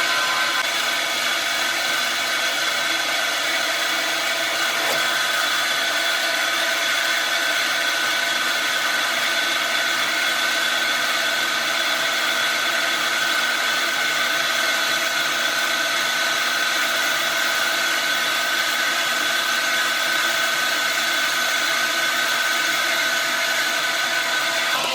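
Horizontal metal-cutting band saw running steadily, its blade cutting through a transformer's steel core and copper windings, with an even, unchanging motor and blade whine.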